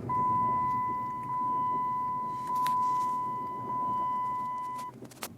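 2006 Dodge Charger's seatbelt reminder chime sounding as a steady electronic tone, four joined pulses over about five seconds, because the driver's seatbelt is unfastened. It stops, and a single click follows.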